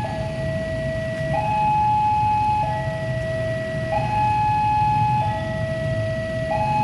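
Two-tone electronic warning signal alternating steadily between a low and a high note, each held about a second and a quarter, over a continuous low rumble.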